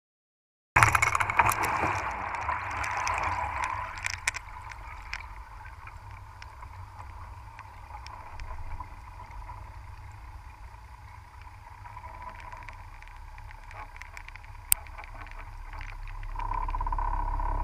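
Underwater noise inside a submerged crab pot, picked up by a GoPro through its sealed housing. The sound cuts in with a loud rushing hiss that dies down over a few seconds into a steady low rumble with scattered clicks and knocks, and one sharp click near the end.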